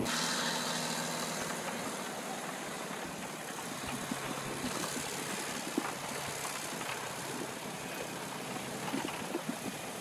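Crawler bulldozer's diesel engine running steadily, with a few short knocks near the end.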